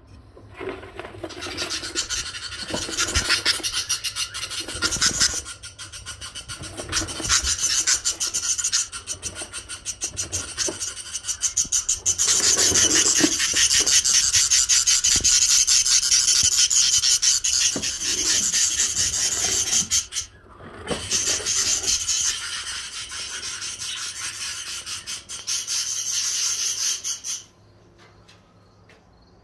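A flock of budgerigars chattering together, a dense, scratchy warbling chorus that breaks off briefly about two-thirds of the way in and stops abruptly near the end.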